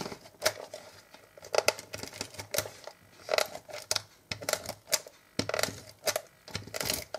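Cardstock pieces being handled, slid and pressed down for gluing: irregular light taps, clicks and paper rustles.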